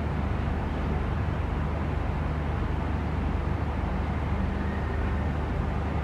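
Steady low hum and rumble of outdoor background noise, with a constant mechanical drone in the low range.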